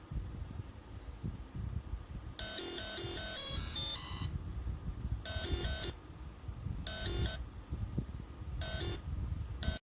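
Electronic alarm of a laser security circuit sounding a high, ringtone-like beeping tune in five bursts, the first about two seconds long and the rest under a second; it starts and stops each time the laser beam is interrupted and restored. A low rumble sits underneath.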